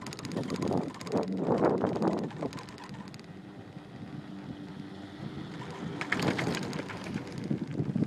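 Wind buffeting the microphone on a moving Doppelmayr detachable chairlift, in gusts, with the faint hum and clicking of the lift as the chair passes a tower. The wind dies down a few seconds in and rises again near the end.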